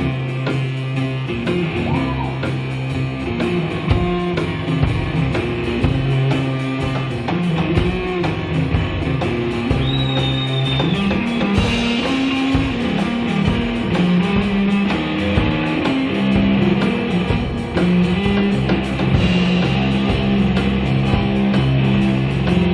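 Instrumental rock music: guitars with bass and a drum kit playing steadily.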